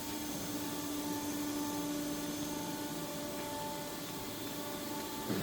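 Steady mechanical hum with a hiss and a faint, constant low tone, like background machinery or ventilation running.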